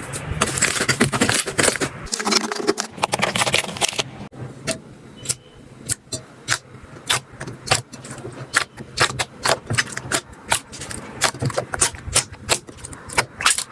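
Slime being squeezed and pressed by hand: dense crackling for the first few seconds, then sharp, irregular clicks and pops, a few each second.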